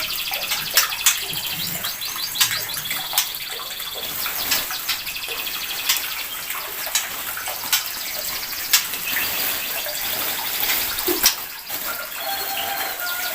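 Caged songbirds chirping and trilling over and over, with sharp call notes over a steady background hiss.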